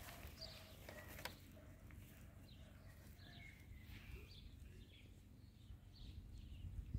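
Near silence: faint outdoor background with scattered distant bird chirps and a single soft click about a second in.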